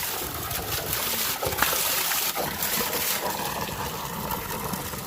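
Natural spring water running and splashing, a steady rush.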